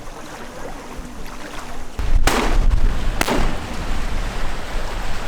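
Strong wind buffeting the microphone, starting suddenly about two seconds in as a heavy low rumble. Two loud sharp cracks come about a second apart over the wind.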